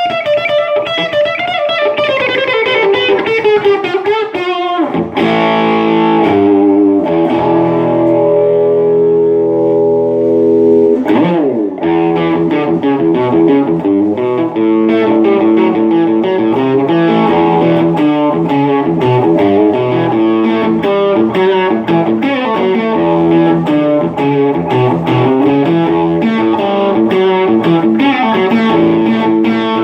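Electric guitar played through an amp with a Boss DS-1 distortion pedal, dialed to a classic rock tone. It opens with a bending single-note lead line, moves to held distorted chords, slides quickly in pitch, then settles into steady picked chord riffing.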